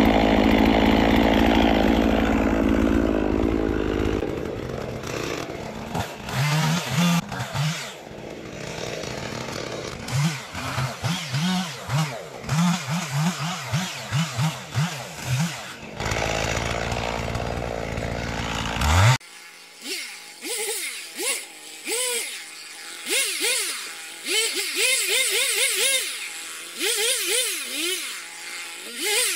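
Husqvarna 55 two-stroke chainsaw cutting up a felled birch: it first runs steadily at high revs, then revs up and down in quick, repeated bursts. About two-thirds of the way through it cuts off suddenly and electronic music with a pulsing beat takes over.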